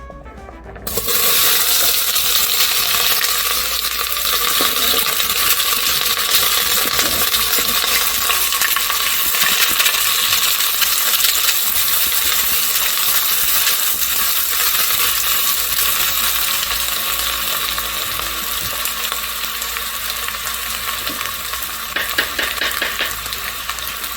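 Onions going into hot oil in a pot and frying, with a loud sizzle that starts suddenly about a second in and slowly eases. A few clicks come near the end.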